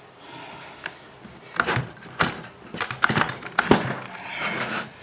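Stihl chainsaw's recoil starter pulled several times, the two-stroke engine cranking over without firing while an inline spark tester checks the coil for spark. The pulls come as irregular rasping strokes with sharp knocks, starting about a second and a half in.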